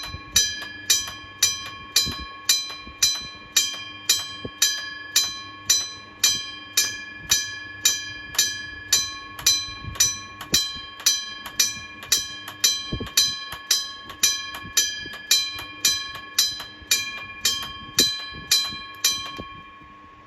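Japanese railway level-crossing electric bell (Kyosan), driven by an intermittent relay, ringing with even single strokes about one and a half times a second, each one ringing on and fading. The strokes stop a second or so before the end and the last one rings out.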